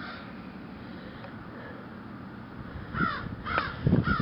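A crow cawing three times in quick succession, starting about three seconds in, over faint outdoor background noise.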